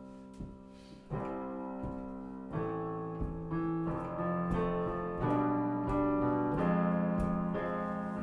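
Piano playing the introduction to a song: slow, sustained chords, struck every half second to a second, growing louder after about a second.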